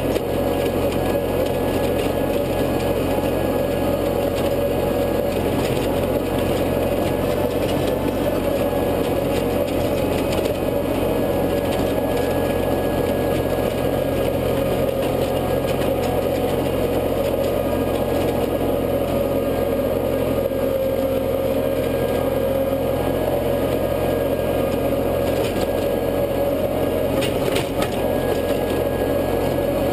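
International tractor engine running steadily under load, driving a rear-mounted PTO rotary tiller that churns through the soil.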